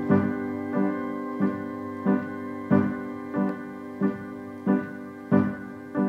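Keyboard with an electric-piano sound striking the same chord in a steady pulse, about three strikes every two seconds, the chord ringing on between strikes.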